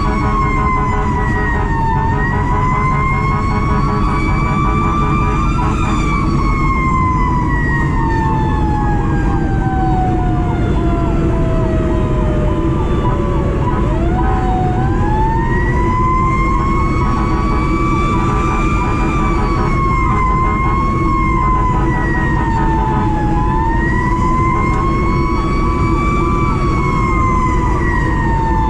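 Fire engine's mechanical Q siren wailing, its pitch slowly rising and falling, with one long wind-down about halfway through before it spins back up; a faster pulsing siren tone runs underneath at times, over the truck's steady diesel drone.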